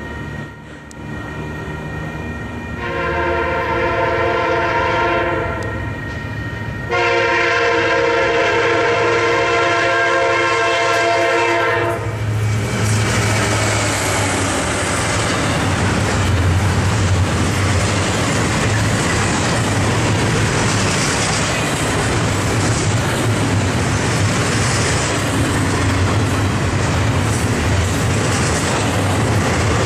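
Union Pacific diesel freight locomotives sound two blasts on their multi-tone air horn for the grade crossing, the second one longer. The locomotives then pass close by with a deep engine drone, followed by the steady rumble and clickety-clack of loaded double-stack container cars rolling by.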